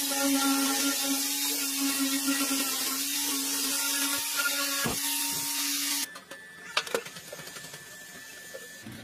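Handheld angle grinder with an abrasive disc running against sheet metal: a steady whine with a hiss of abrasion. About six seconds in it cuts off suddenly, leaving light taps and clatter of a metal sheet being handled.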